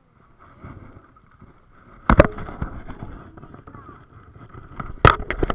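Water sloshing around a small paddle craft, with two sharp knocks about two and five seconds in, and faint voices in the distance.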